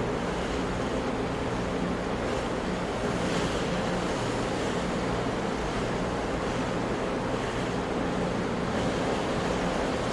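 Ocean waves crashing on rocks: a steady, continuous rushing wash of surf with no clear gaps between breakers.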